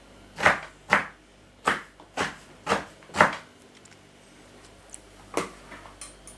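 Kitchen knife chopping sauerkraut on a wooden cutting board: six sharp chops at about two a second, a pause, then one more chop about five seconds in and a few light taps.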